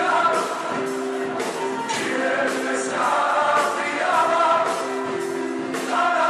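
A men's vocal group singing a Christian worship song together in harmony into microphones, with held notes and a steady beat in the accompaniment.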